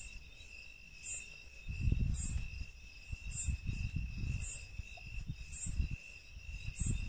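Night insects: a cricket's steady high trill with a second insect chirping about once a second. From about two seconds in there are low rumbles and thumps under them.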